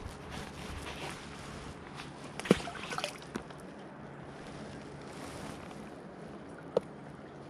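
Steady hiss of rain and water sloshing around a floating fishing raft. A sharp knock comes about two and a half seconds in, a few smaller knocks follow just after, and there is a short click near the end.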